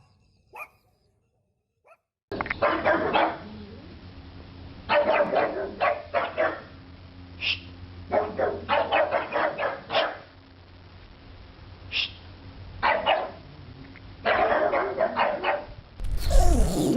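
A dog barking in bursts of several quick barks, with pauses of a second or two between the bursts.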